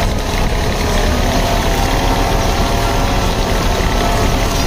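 Tractor diesel engine running steadily under load while it pulls a mounted mouldboard plough through the soil.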